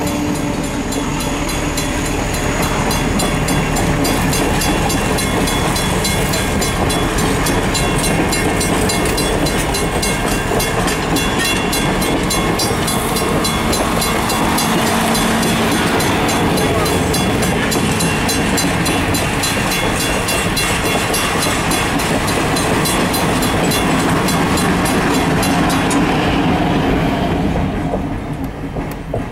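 Passenger cars rolling through a grade crossing: steady wheel-on-rail noise with clickety-clack over the rail joints, under the fast, even ringing of the crossing-signal bell. The train noise falls away and the ringing stops near the end as the last car clears.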